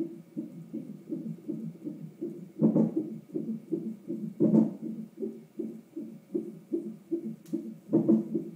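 Fetal heart monitor's Doppler sound of a 33-week fetus: a steady, whooshing heartbeat of about two and a half beats a second. It is broken three times by a louder thump, the jolt of the baby's hiccups.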